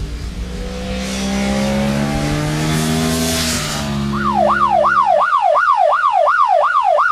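A vehicle engine revs up, rising in pitch, with a rushing hiss. About four seconds in, a rapid up-and-down yelp siren starts, about three sweeps a second.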